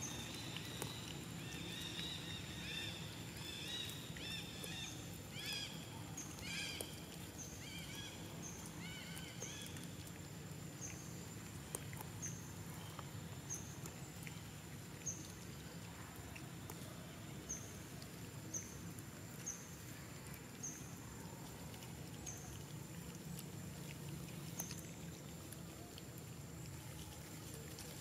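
Outdoor ambience with birds calling: a run of short rising-and-falling chirps through the first ten seconds, and a thin high note repeated about once a second throughout, over a low steady background hum.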